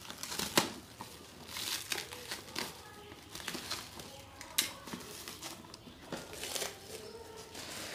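Clear plastic film wrapping being peeled and crumpled off a cardboard box by hand, in irregular crinkling rustles, with sharp crackles about half a second in and again past the halfway point. The wrap is tight and hard to pull off.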